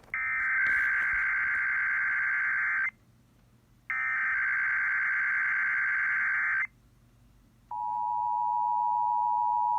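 Emergency Alert System broadcast: two bursts of SAME digital header data, each a harsh warbling buzz nearly three seconds long with a one-second gap between them. About a second after the second burst, the steady two-tone EAS attention signal (853 and 960 Hz) starts.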